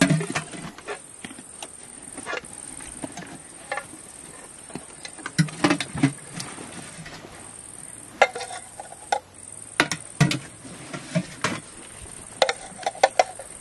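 A steady high insect trill that breaks off briefly and resumes every second or two. Over it come scattered clinks and knocks of metal mess tins and a ladle as food is dished out.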